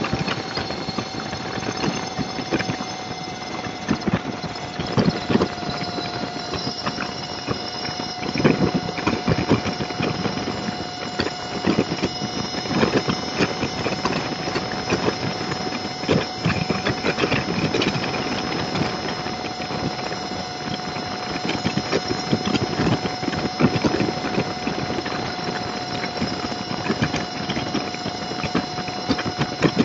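Road noise from a vehicle cruising at freeway speed, heard through a dash camera's microphone. A steady mid-pitched whine runs under frequent, irregular knocks and rattles.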